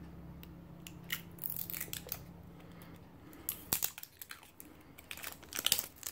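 Clear plastic shrink wrap crinkling and tearing as it is peeled by hand off a roll of washi tape. It comes in irregular clusters of short crackles, loudest near the end.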